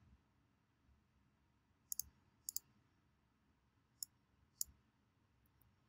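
Computer mouse clicking: a quick double click about two seconds in, then single clicks about half a second later and twice more around four to four and a half seconds, over near silence.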